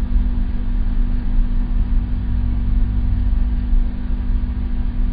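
Idling car engine: a steady low rumble with a constant hum.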